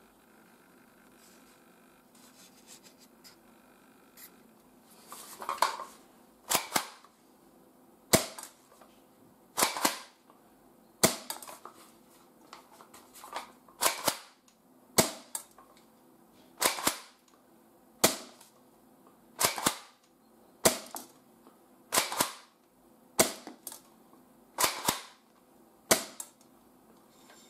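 Spring-powered airsoft shotgun being cocked and fired over and over, firing 0.20 g BBs at about 110 m/s: a series of sharp mechanical clacks, about one every second and a half.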